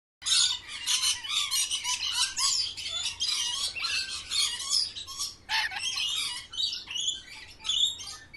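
Birds chirping and squawking, many short high calls overlapping without a break; the sound starts suddenly after silence.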